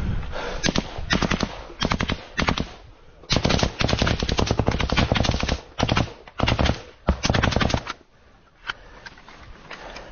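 Close automatic rifle fire: a string of short bursts and one long burst of about two and a half seconds, then a pause and a single shot near the end.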